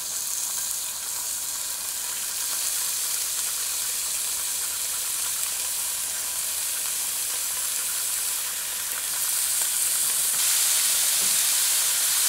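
Thin strips of flank steak sizzling in hot olive oil in a skillet as more strips are laid in, a steady high frying hiss that grows louder as the pan fills.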